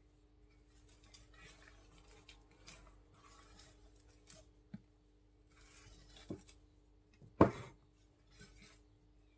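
Silicone spatula folding beaten egg whites into cake batter in a glass bowl: soft scraping swishes, with a few knocks against the glass, the loudest about seven seconds in. A faint steady hum runs underneath.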